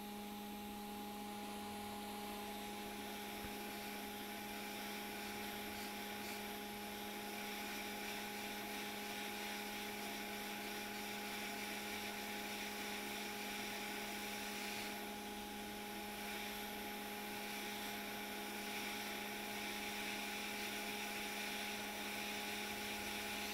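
Hot air rework station blowing on a circuit board: a steady hum with a hiss of air, unchanging, as it preheats a surface-mount BIOS chip from a distance.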